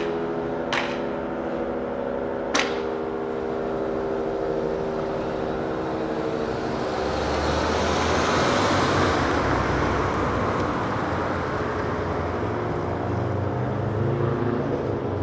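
A motor vehicle passing by: a rushing noise with a low engine rumble swells to a peak about halfway through, then slowly fades. Before it, a steady droning hum with a couple of sharp clicks.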